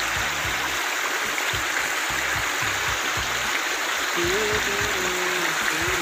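A small waterfall of runoff water splashing steadily over a low earth bank into a pool. Faint music plays underneath, with a tune standing out from about four seconds in.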